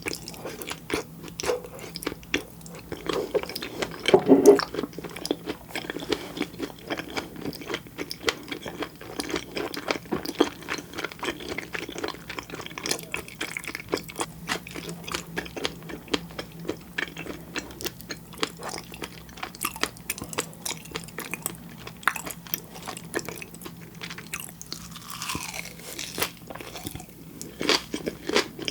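Close-miked eating of raw fish sashimi and flying fish roe: wet chewing with dense, rapid little crunches and pops, and a louder bite about four seconds in.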